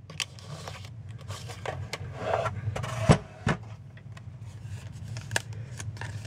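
Die-cutting plates and cardstock being handled and taken out of a Big Shot die-cutting machine: scattered light clicks and clacks with some paper rustling, and two sharper knocks close together about three seconds in.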